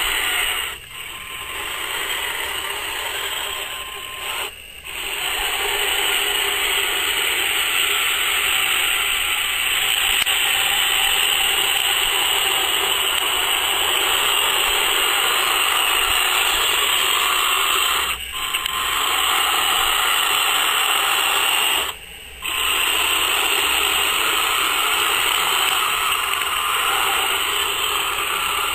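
Electric drive motors and gearboxes of a 1/15 Bandai Hummel radio-controlled tank running with a steady whir, cutting out briefly four times as the tank stops and moves off again.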